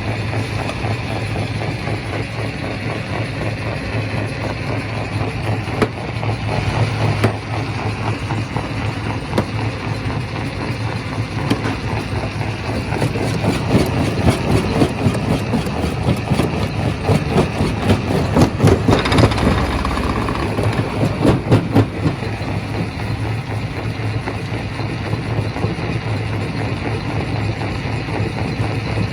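Quarry rock crusher running with a steady low engine-like hum, and a stretch of dense clattering and knocking as rock is broken from about halfway through until about three quarters of the way in.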